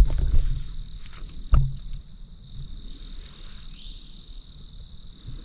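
Steady chorus of insects, two continuous high-pitched trills, with a couple of dull low thumps at the start and about a second and a half in.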